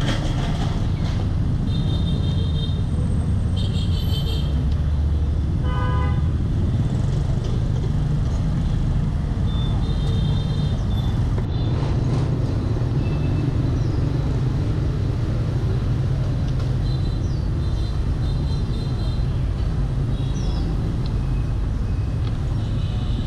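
City street traffic with a steady low rumble, and vehicle horns beeping several times in short toots.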